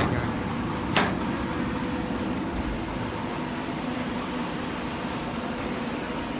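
Steady mechanical drone of a corrugated-board slitter-scorer machine running, with a faint constant hum, and one sharp knock about a second in.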